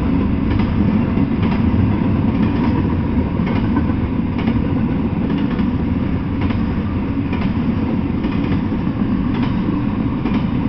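Double-stack intermodal freight train rolling past on well cars: a steady rumble of wheels on rail, with a wheel click about once a second.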